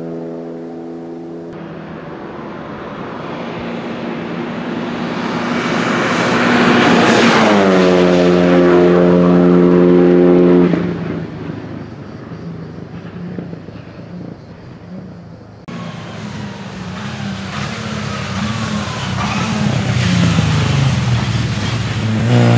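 Renault Clio RS Cup race cars' engines at speed, in several cut-together passes. One car approaches, goes by about seven seconds in with its engine note dropping, and holds a steady note before the sound cuts. Near the end another car comes up on a wet track, its engine rising over the hiss of tyre spray.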